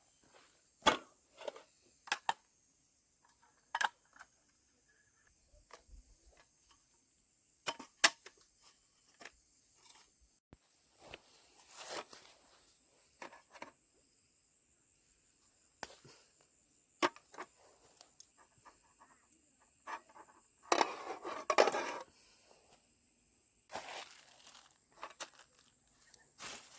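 Scattered sharp clicks and knocks with a few bursts of rustling, the longest about three-quarters of the way through, over a faint steady high-pitched hum.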